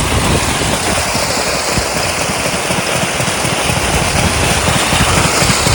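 Diesel engine of an irrigation water pump set running steadily: a rapid low chugging under a loud, even rushing noise.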